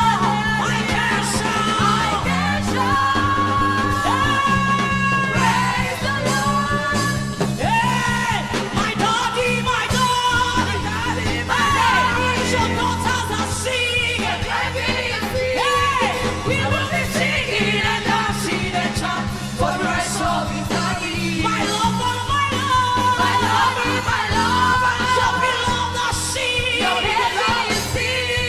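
Live gospel singing with a band: a female lead voice sings over steady held keyboard and bass chords.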